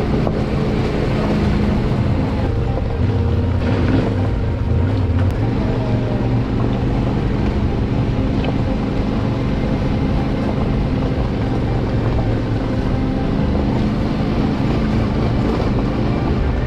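Yamaha Ténéré 700's parallel-twin engine running at steady revs as the motorcycle rides on, with wind noise on the microphone.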